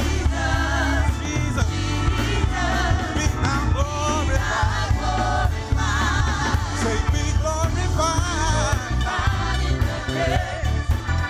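Gospel praise music: singers over a band with a strong steady bass.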